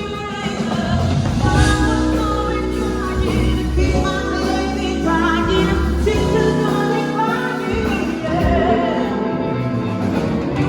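Music with a singing voice carrying a wavering melody over sustained low bass notes.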